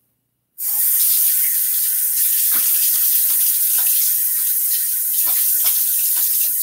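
Bathroom tap running steadily into a sink as a face is rinsed between shaving passes, with a few light splashes of water. The water sound starts suddenly about half a second in.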